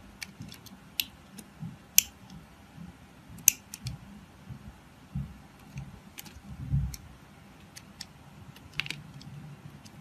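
A craft knife paring thin curls off a bar of translucent blue soap: irregular crisp clicks and crackles as the blade cuts through, a few much sharper than the rest and a quick cluster near the end.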